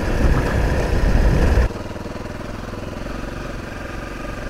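Single-cylinder Honda CRF motorcycle engine running under way with wind noise, then abruptly dropping about a third of the way in to a quieter steady idle.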